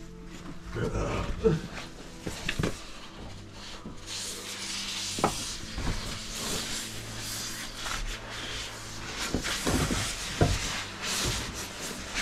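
Scrapes, shuffles and irregular knocks of people and gear rubbing against rock while crawling through a tight cave squeeze. A scraping hiss runs through the second half.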